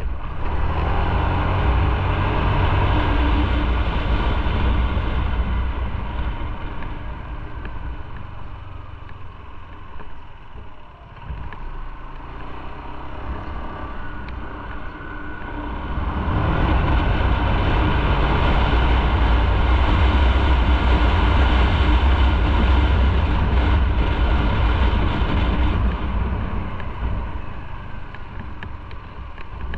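Motorcycle being ridden, engine running under way. It is loud at first, eases off for several seconds in the middle, then pulls harder again before easing near the end.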